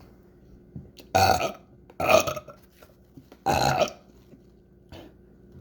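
A person burping three times in quick succession, three short loud belches within about three seconds.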